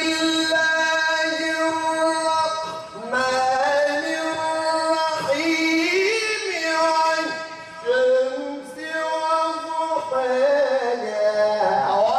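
A male reciter chanting the Quran in a melodic tilawah: long held notes with ornamented turns in pitch, sung in several long phrases with short breaks between them.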